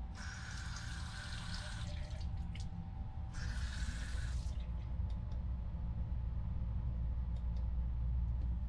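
Water running from a small washbasin tap into the basin in two short spells, the first about two seconds long, the second about a second, then stopping. A steady low hum runs underneath, with a few faint clicks after the water stops.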